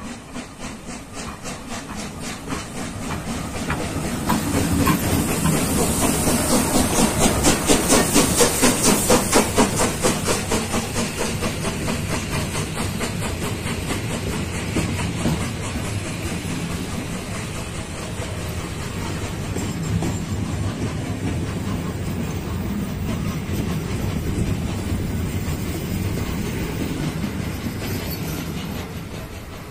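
Steam locomotive hauling a train of passenger carriages past at close range. It grows louder to a peak about eight seconds in, with a fast regular beat and a hiss of steam. The carriages follow, rolling by with a steady rumble and clatter of wheels on rail joints.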